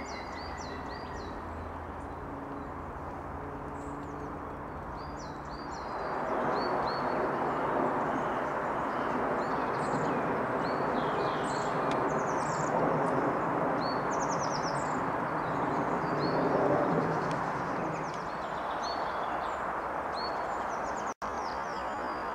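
Eurasian nuthatch and other woodland birds calling, a steady run of short, high, quick notes, over a steady rushing background noise that swells about a quarter of the way in and eases again near the end.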